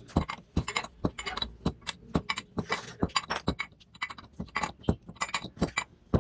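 Irregular light metallic clinks and taps, several a second, from metal parts and tools being handled and struck.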